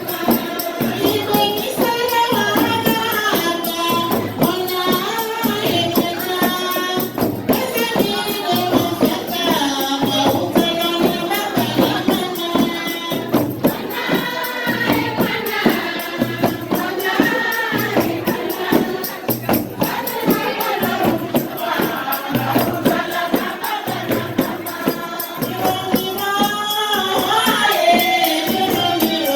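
A group of voices singing together in a chant-like wedding song over a steady beat of hand percussion with jangling jingles, the tambourine-like rhythm even throughout.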